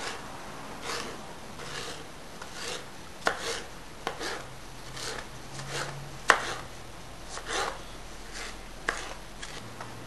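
Chef's knife chopping plum tomatoes on a cutting board: uneven chops, roughly one or two a second, the sharpest a little past halfway.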